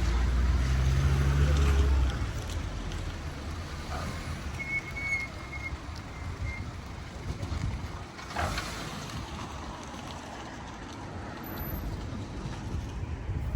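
A car engine idling steadily, cut off abruptly about two seconds in; after that only faint outdoor background, with a single sharp knock about halfway through.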